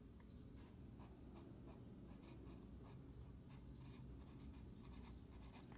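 Pen writing on planner paper: faint, quick scratching strokes in short uneven runs.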